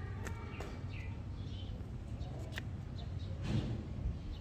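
Steady low outdoor rumble with faint short bird chirps, and a few crisp clicks from a cat chewing dry kibble.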